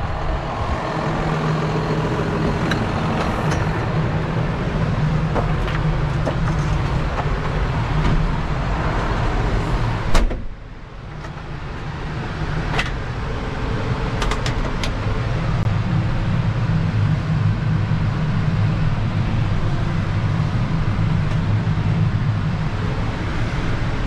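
John Deere 6155R tractor's six-cylinder diesel engine running steadily. About ten seconds in, a single loud slam, after which the engine is heard muffled from inside the cab and grows louder again a few seconds later.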